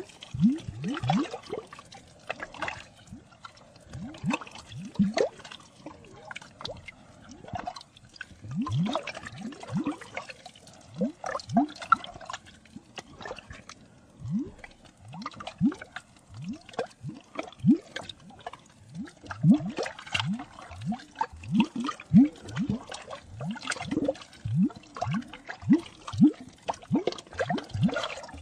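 Water drops falling into water: many irregular plops, several a second, each a short blip rising in pitch.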